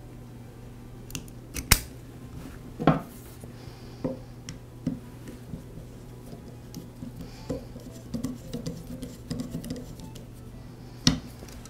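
Small sharp clicks and light scratchy ticks as a plastic brush cap is pressed into a router's motor housing and tightened with a flat-blade screwdriver. The loudest click comes near the start, and a few lighter ticks follow as the screwdriver works in the cap's slot.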